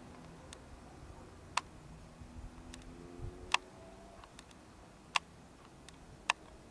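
A series of sharp, irregularly spaced clicks, about eight in all, over a steady low hiss, with a faint rising tone briefly in the middle.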